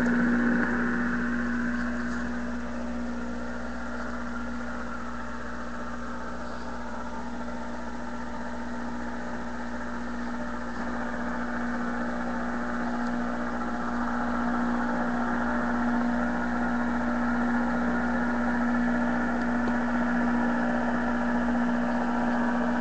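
A 1936 RCA Victor 5T5 tube radio tuned to a shortwave band, giving a steady drone: one constant low hum tone over a hiss of static. The static sinks a little a few seconds in and swells back up toward the end.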